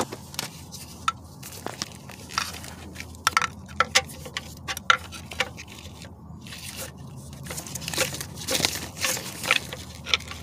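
Steel pry bar scraping and clicking against the teeth of an automatic's flexplate ring gear through the starter opening, levering it round: irregular metallic clicks and short scrapes.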